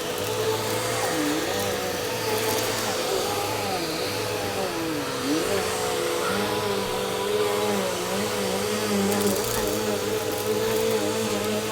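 Household vacuum cleaner running steadily, a continuous motor whine with a fixed pitch.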